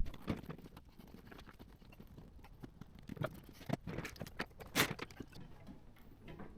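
Irregular knocks and clunks from a car seat and its hardware being handled and worked into place, with a sharp knock at the start and another loud one a little before the end.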